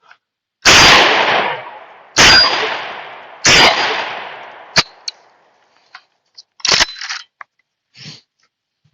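JTS AK-12 semi-automatic 12-gauge shotgun firing three buckshot rounds about a second and a half apart, each blast echoing and fading away over more than a second. A few short metallic clacks follow in the second half.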